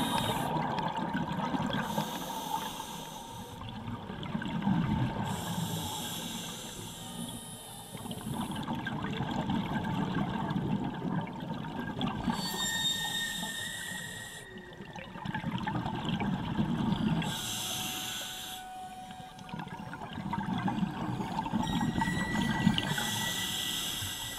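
Scuba diver breathing through a regulator underwater: a hiss on each inhale alternating with a low rumble of exhaled bubbles, about one breath every four to five seconds.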